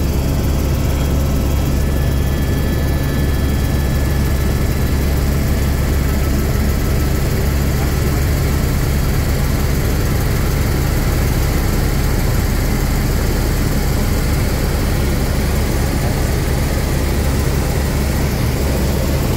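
Airbus H125 (AS350 B3 Ecureuil) single-turbine helicopter in flight, heard from inside the cabin: a steady, loud drone of the Arriel 2B turbine and rotors with a strong low hum underneath.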